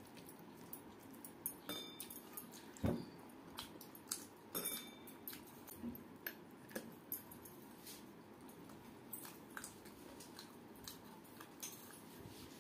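Eating by hand from steel dishes: scattered small clicks and clinks as fingers pick at the food and bangles tap the metal plates, some with a short metallic ring, and one louder knock about three seconds in.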